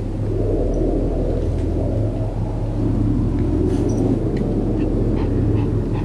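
A small dog, a Pomeranian, growling low and rough for about five seconds, over a steady low hum.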